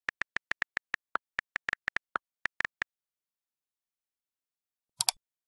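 Keyboard typing sound effect: a quick run of about sixteen sharp key clicks over nearly three seconds. After a pause, a quick double click near the end, like a mouse click.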